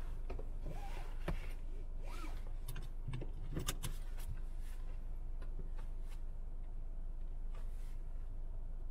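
Car engine idling, heard from inside the cabin as a steady low hum, with a few light clicks and rattles in the first four seconds.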